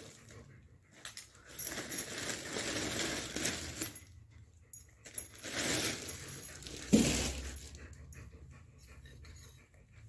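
A thin plastic bag rustling and crinkling as vegetables are taken out of it, with a sharp thump about seven seconds in.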